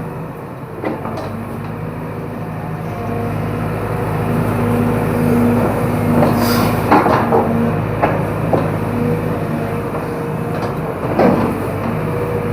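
Excavator's diesel engine running steadily, growing louder about a third of the way in as it works, with a few sharp knocks and cracks in the second half.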